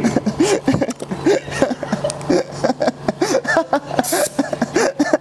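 Voices talking and chuckling over one another, unclear and not a single narrator, with scattered light knocks and taps throughout.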